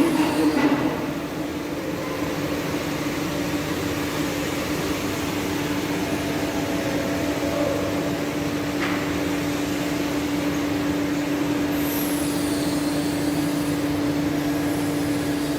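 Slideway grinder running steadily: a constant hum with one steady tone under an even hiss of machine noise.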